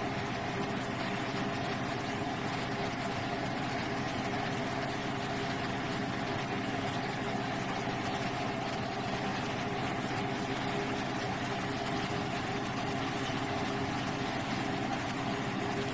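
Bhatura deep-frying in hot oil, a steady sizzle, with a steady low hum underneath.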